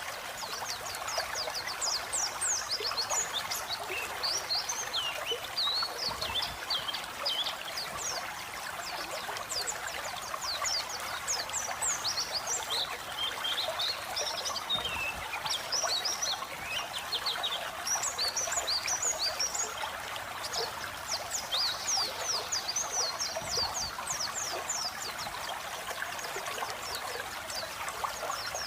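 Pleci (white-eye) song: a fast, unbroken twittering of short, high, falling notes over a steady sound of running water.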